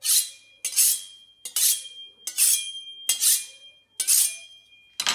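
Santoku knife blade drawn along a steel honing rod, seven strokes about 0.8 s apart, each a bright metallic scrape that rings on briefly after it.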